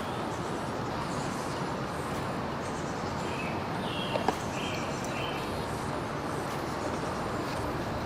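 Steady outdoor background noise, like distant road traffic, with a few short bird chirps and a couple of light clicks about four seconds in.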